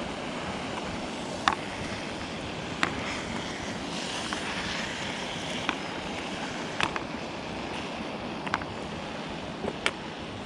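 Steaks sizzling in a pan: a steady hiss broken by about half a dozen sharp pops of spitting fat, irregularly spaced.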